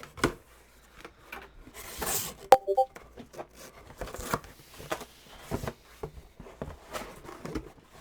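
Cardboard shoebox being handled and opened: scattered knocks and scrapes, with a rustle of paper about two seconds in and a sharp click soon after.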